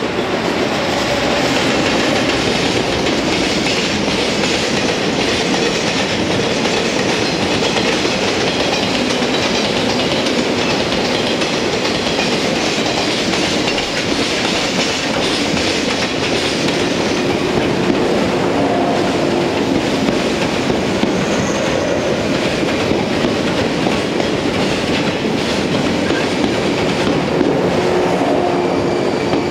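Container freight train hauled by an EF210 electric locomotive running past at speed, its wheels rumbling and clattering on the rails without a break. From about halfway through, a yellow electric commuter train passes close by on the near track and adds its own wheel noise.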